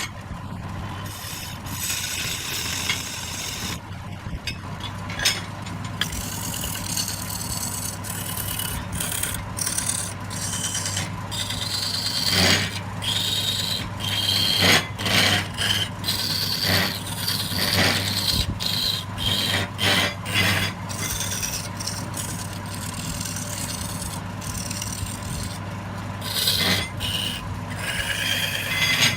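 Wood lathe motor running with a steady hum while a tool scrapes against the spinning wood. The scraping comes in a run of louder, uneven strokes in the middle.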